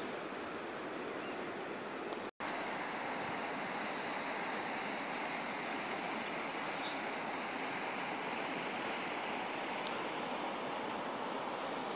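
Steady rushing of a river's flowing water, with a brief dropout about two seconds in and a few faint ticks over it.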